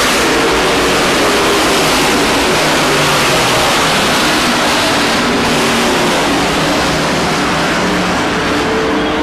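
Several race trucks' engines running together as the field laps the track: a loud, steady blend of engine noise with no single pass standing out.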